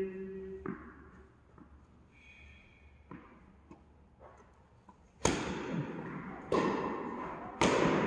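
Tennis ball struck by rackets three times in quick succession during a rally, about 5, 6.5 and 7.5 seconds in, each sharp hit ringing on in the echo of the indoor court hall. A few faint taps come before them.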